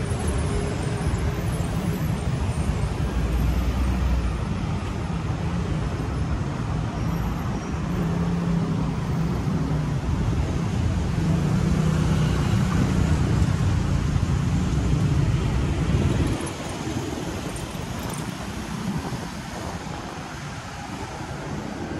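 Wind buffeting the microphone over street traffic noise. The low rumble drops away about sixteen seconds in.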